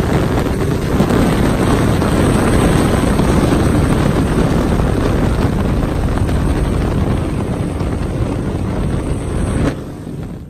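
Steady rush of wind and motorcycle engine and road noise, heard from a motorcycle riding at highway speed, with heavy wind on the microphone. It drops sharply near the end and then cuts out.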